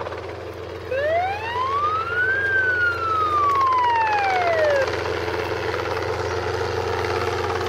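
Helicopter flying low, its rotor and engine making a steady hum. About a second in, a loud siren-like tone sweeps up in pitch, then slowly falls away and stops a little before five seconds.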